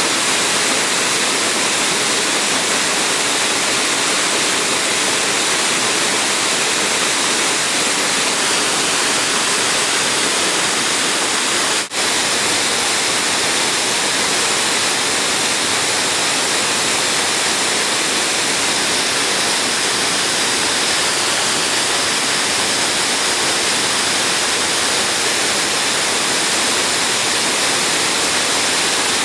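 Waterfall on a mountain creek, a loud, steady rush of falling water, briefly dropping out about twelve seconds in.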